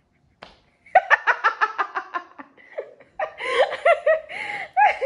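A woman laughing hard: a short tap about half a second in, then a quick run of ha-ha-ha, then more laughter that rises and falls in pitch.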